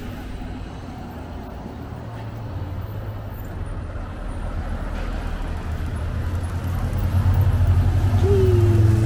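Cars rolling slowly through a tight hairpin bend with a steady low engine hum. In the last couple of seconds a Ferrari's engine grows louder as it passes close by.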